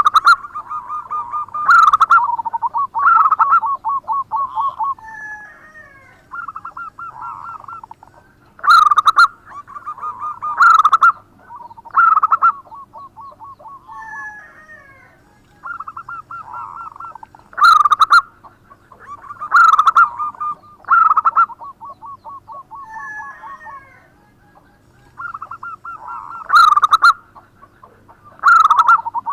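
Zebra dove (perkutut) singing its rhythmic cooing song: a few loud coos running into a fast rattling trill, the phrase repeated about every nine seconds, with softer higher notes between phrases.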